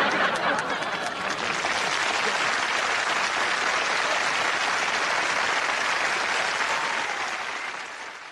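Studio audience applauding steadily, tapering off slightly near the end.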